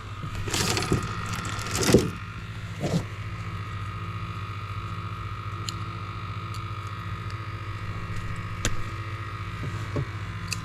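A boat's motor runs with a steady hum. A few louder rustles and knocks come in the first three seconds, and single sharp clicks come later.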